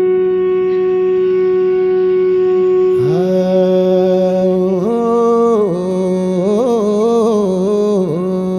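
Nepali folk music: a long held melodic note over a steady drone. About three seconds in, a second melodic line slides up and then moves in bending, wavering phrases, with no drumming.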